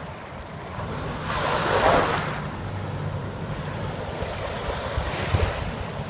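Wind buffeting the microphone over small river waves lapping at a sandy shoreline, with a swell of rushing noise about two seconds in and again near the end.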